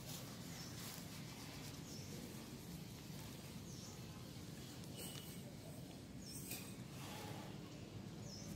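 Faint steady background noise with a small bird giving short high chirps about five times, one every second or two, and a few faint clicks.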